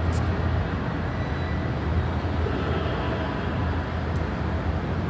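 Steady low rumble with a hiss above it: general airport background noise, with no single event standing out.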